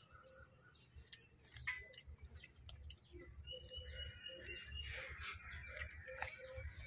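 Faint eating sounds by hand: chewing and fingers mixing rice with fish curry on a banana leaf, heard as scattered small wet clicks. Birds call in the background, with one held note about midway.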